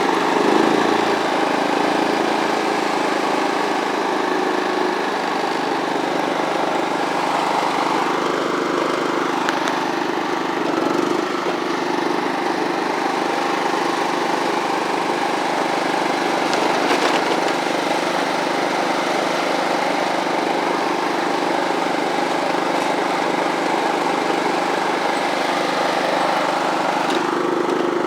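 Kohler CV13S 13-horsepower single-cylinder engine of a John Deere LT133 lawn tractor running steadily.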